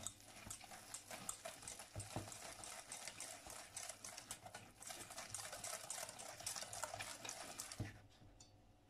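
Wire balloon whisk beating thick almond muffin batter in a stainless steel bowl: quick, busy wet scraping and light clinking of the wires against the bowl, stopping about a second before the end.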